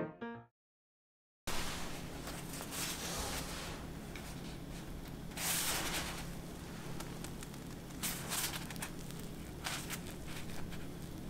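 Soft-crusted red bean and chestnut bun squeezed and pulled apart by hand: rustling of the crust and soft tearing of the crumb, with a louder rustle about five seconds in and a few light clicks of handling.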